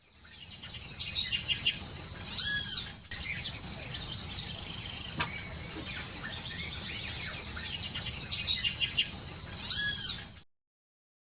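Parrot calls: short chirps, with two loud arched squawks, one about a quarter of the way in and one near the end, over a steady high-pitched tone. The sound cuts off suddenly shortly before the end.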